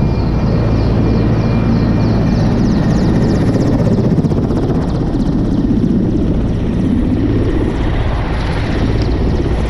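Military transport helicopter running close by on the ground, its rotor and turbines making a loud, steady din with a rapid thudding pulse.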